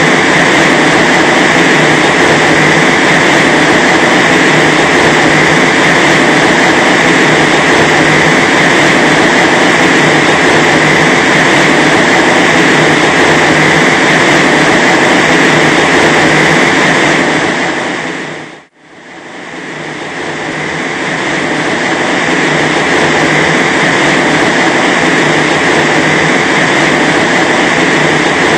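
Wind machine blowing a steady, loud rush of high-speed air against a fence panel. About two-thirds of the way through, the roar fades to almost nothing and then builds back up.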